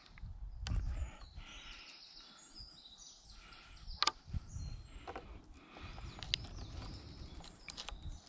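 Thin cord being wrapped and pulled tight around two wooden poles in a lashing, with rustling and sharp clicks from the hands, cord and wood, the loudest about four seconds in. Birds chirp in the background.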